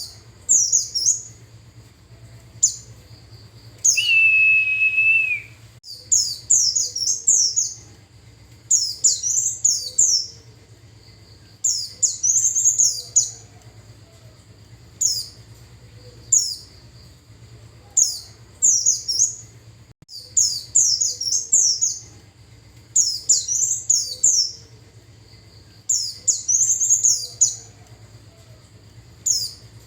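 White-eye (pleci) song used as a lure call: rapid, thin, high twittering phrases in short bursts every second or two. About four seconds in, a single held, lower steady tone lasts about a second and a half.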